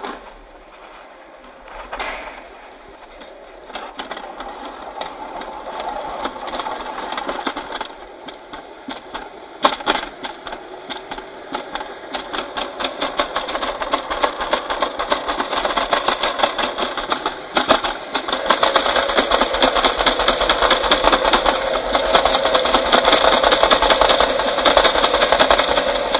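Summer bobsleigh sled rolling down a stainless-steel trough track, its wheels giving a fast continuous rattle that grows louder as the sled gathers speed. A few sharper knocks sound along the way, and a steady whine joins the rattle about eighteen seconds in.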